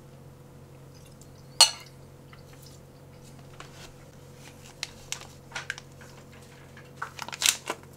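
A utensil clinking and scraping against a ceramic bowl: one sharp ringing clink about one and a half seconds in, then scattered lighter clicks and scrapes, busiest near the end.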